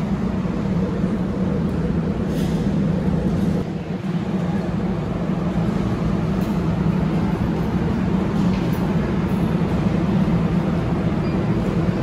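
Shopping cart rolling over a hard store floor, a steady low rumble with a short let-up about four seconds in.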